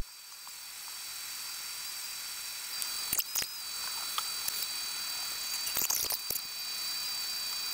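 Glowforge laser engraver running while it engraves: steady fan noise with a high whine, and the head's motors making short sharp zips and clicks a few times as it moves.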